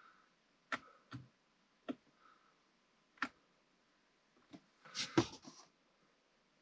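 Scattered clicks and taps from fingers working a car's aftermarket Android head unit and its controls: single clicks a second or so apart, then a louder quick cluster about five seconds in.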